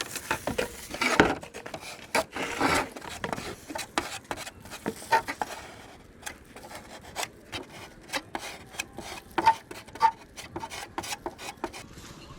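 Hand rubbing on a scooter body panel, like sanding, in many short, irregular scraping strokes, with some louder strokes now and then.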